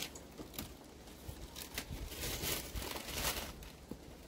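Masking paper being peeled off a freshly sprayed van panel and bunched up by hand: irregular crinkling, crackling and tearing rustles.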